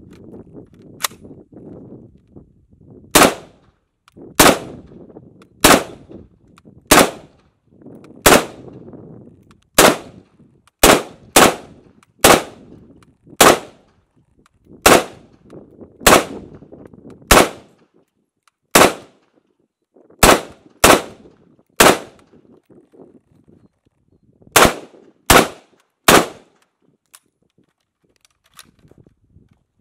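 Zenith Z43P, an HK93-clone .223 rifle, fired as single shots: about twenty sharp reports, roughly one every second or second and a half, with a couple of short pauses. The last shot comes a few seconds before the end.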